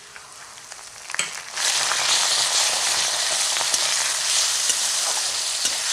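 Grated onion tipped into hot mustard oil in a kadai with frying garlic and spices, bursting into sizzling about a second and a half in after a click. The sizzle then holds steady, with scattered small clicks.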